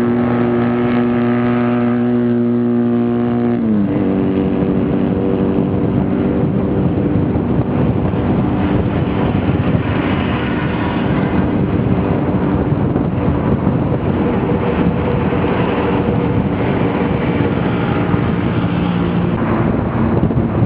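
Vento V Thunder motorcycle engine running steadily at highway speed. Its pitch drops sharply about four seconds in, then holds steady again under a loud rush of wind noise.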